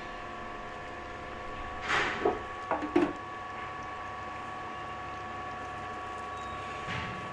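A steady hum holding several constant tones, with a short flurry of sharp knocks and clatter about two to three seconds in.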